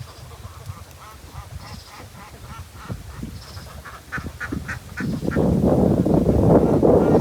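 Farm poultry calling: faint, short calls at first, then from about five seconds in a much louder clamour of many overlapping calls.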